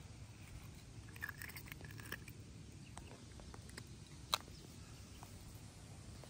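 Faint scattered clicks and rustles of a small hooked fish being handled and unhooked by hand, with one sharper click about four seconds in, over a low steady rumble.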